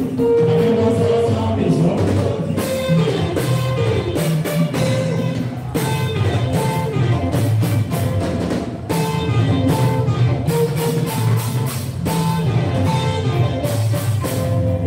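Live Fuji music: a man singing into a microphone over a band with a steady drum beat, loud through a PA system.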